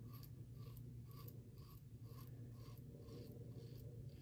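A Bevel double-edge safety razor scraping through lathered stubble in short, faint strokes, about two to three a second, over a low steady hum.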